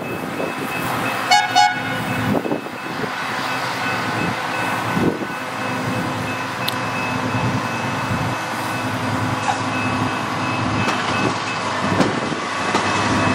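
Rail maintenance-of-way machines running on the track, a steady engine and wheel noise, with two short horn toots about a second and a half in. A deeper rumble builds near the end as the next machine draws closer.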